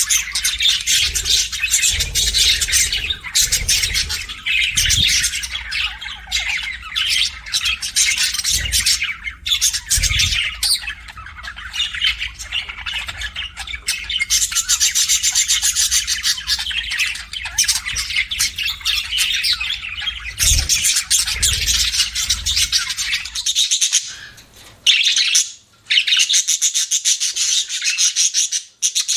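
A group of budgerigars chattering, with dense, rapid, high-pitched chirps and squawks overlapping without pause. A low rumble under the chirping drops away about three-quarters of the way through.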